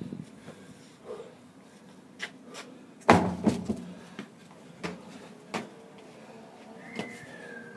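Workout impacts: one heavy, deep thud about three seconds in, the loudest sound, with scattered lighter knocks and taps before and after. A short squeak falls in pitch near the end.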